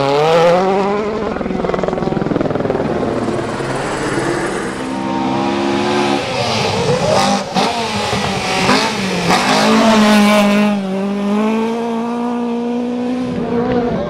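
Rally cars passing flat out on gravel stages, one after another: a Citroën DS3 WRC with its turbocharged 1.6-litre four-cylinder, then a Ford Escort Mk2. The engines rev hard, and the pitch drops and climbs again through gear changes and lifts.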